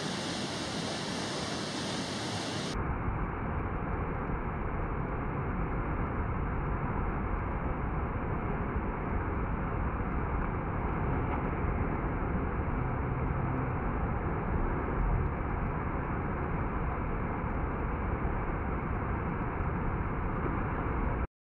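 Waterfall pouring into its pool: a steady rush of water noise. It turns duller about three seconds in and stops abruptly near the end.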